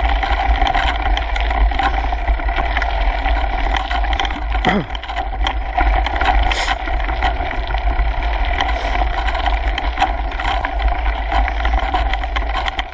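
Kona Coiler mountain bike rolling fast down a gravel trail: steady tyre noise on loose grit with constant small rattles and clicks from the bike and the handlebar-mounted GoPro housing, over a deep rumble of wind buffeting.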